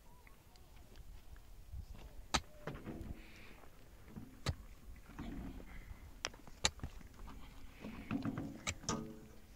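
Mattock digging into dry, stony soil: sharp metal-on-stone hits a second or two apart, about five in all, with the scrape and crumble of loosened earth and gravel between them.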